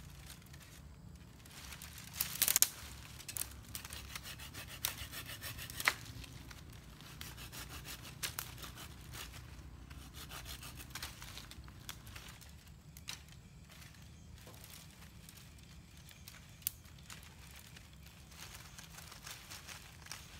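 Dry sticks being handled and cut with a small hand saw: wood scraping and rubbing, with dry leaf litter crackling. Irregular sharp cracks stand out, the loudest a cluster about two seconds in and another near six seconds.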